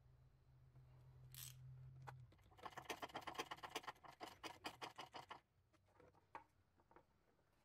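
A child with a lingering cold coughs once about a second and a half in. Then a ratchet clicks rapidly for about three seconds, about ten clicks a second, as it tightens a stainless steel hose clamp on the heater hose, and a few single clicks follow.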